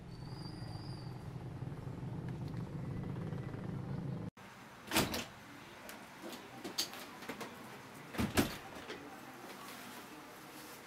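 A steady low street hum runs for about four seconds and cuts off abruptly. A few sharp knocks and clacks of a door being handled follow, the loudest two close together near the end.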